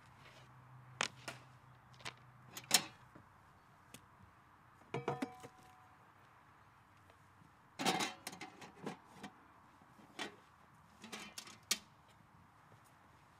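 Camp cookware and utensils being lifted out of a wooden gear box and set down: scattered clinks and clatters of metal pots, pans and tools, with a brief metallic ring about five seconds in.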